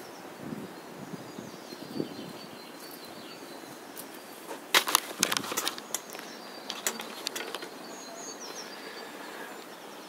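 Clicks and knocks of a video camera being picked up off a wooden target stand and handled: a loud cluster about five seconds in, then a few more around seven seconds. Faint birdsong chirps throughout.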